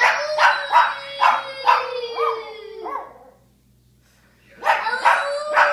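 A puppy howling: a long, slowly falling note broken by rhythmic yaps at about two to three a second. It stops for about a second and a half, then starts again near the end.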